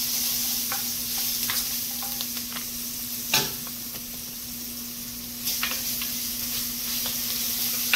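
Minced garlic sizzling in hot oil in an enamelled cast-iron Dutch oven as a wooden spoon stirs it, over a steady low hum. The spoon knocks against the pot a few times, loudest about three and a half seconds in.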